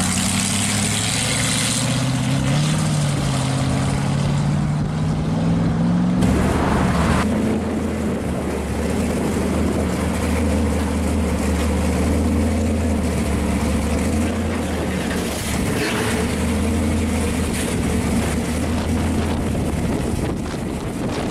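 A yellow hot-rod coupe's exposed V8 pulls away, its engine note rising and shifting in pitch. About six seconds in, the sound cuts to a supercharged V8 in a purple second-generation Camaro, idling with a steady low note as the car creeps past.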